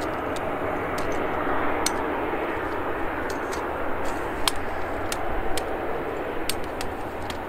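Airbus A220-300's Pratt & Whitney PW1500G geared turbofan engines running at low taxi power, a steady even noise, with scattered sharp clicks over it.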